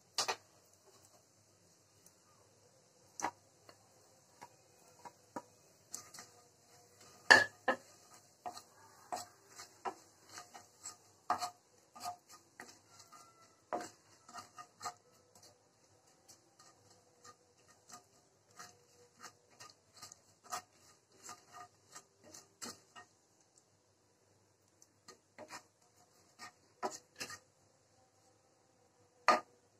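Spatula stirring and scraping cumin seeds and asafoetida in oil in a nonstick frying pan: irregular clicks and scrapes against the pan, with a few louder knocks.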